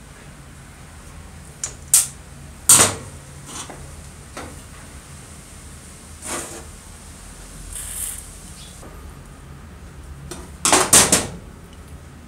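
Sharp metal clinks and knocks of an old circular saw's parts being handled and a screwdriver being set down on the floor during disassembly. Several separate knocks, the loudest about three seconds in, and a quick cluster of them near the end.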